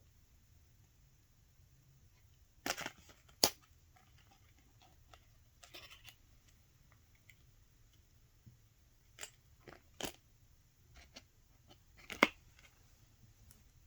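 Paper and card being handled: a few sharp taps and crinkles with short rustles between them, as the pages and inserts of a hardbound portfolio are turned and moved.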